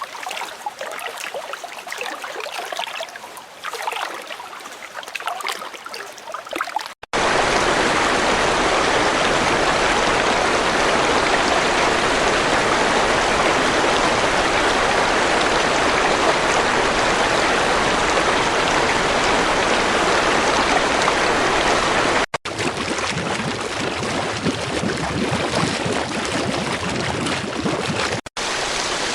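Running water made of several separate recordings joined by abrupt cuts. It starts as a thinner, splashy trickle, switches about seven seconds in to a loud, steady rush, and changes twice more near the end to other flowing-water textures.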